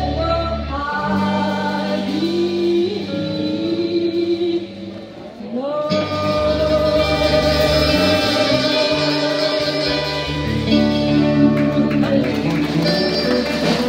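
Live country band playing, with a woman singing lead over electric guitars, bass guitar and drums, holding long sung notes. The music drops briefly about five seconds in, then comes back in full.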